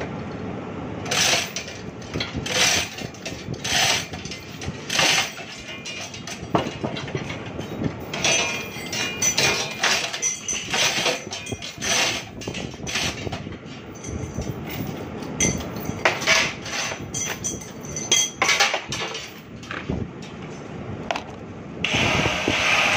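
A hammer striking steel while the screw-conveyor flight is worked by hand: irregular ringing blows, roughly one a second. Near the end a steady, loud hissing machine sound starts.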